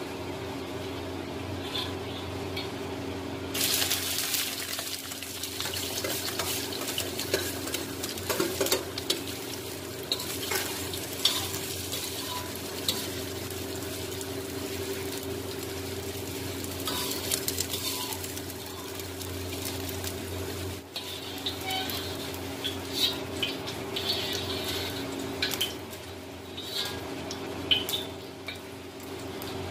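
Potato and cauliflower pieces frying with cumin seeds in hot oil in a kadhai, sizzling, while a metal spoon stirs and scrapes against the pan in short clinks. A steady low hum runs underneath.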